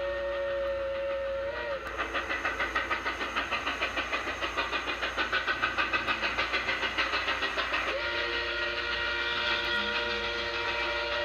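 Grand Trunk Western 4-8-4 steam locomotive #6325's whistle blowing a chord of several notes. It cuts off with a dip in pitch just under two seconds in, followed by rapid exhaust chuffs, about six a second, for some six seconds. The whistle sounds again about eight seconds in.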